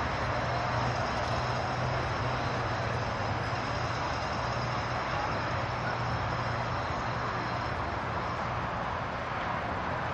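Steady highway traffic noise, an even wash with no break.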